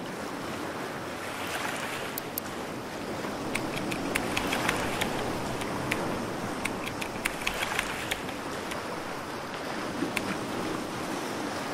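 Computer keyboard keys clicking in quick irregular runs as a search is typed, over a steady rushing noise.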